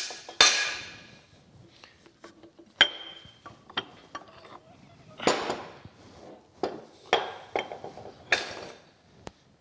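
Cast iron spacers and parts of a cane mill clanking against each other as they are worked loose and pulled out: a series of sharp metal knocks, the loudest about half a second in, several ringing briefly.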